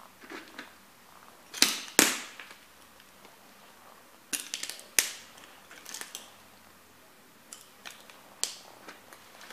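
Heavy leather work boots stomping and tapping on a painted board around a plastic model car: a series of sharp knocks and clicks, the two loudest close together about a second and a half in, then clusters of lighter ones.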